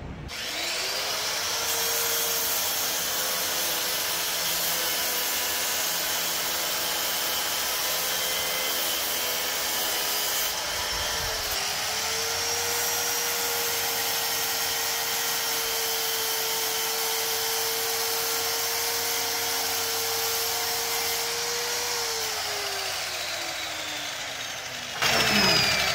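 Sliding compound miter saw motor spinning up to a steady high whine while cutting wooden crown molding. It dips briefly about halfway through and comes back up, then winds down, falling in pitch, over the last few seconds. A sudden louder sound comes right at the end.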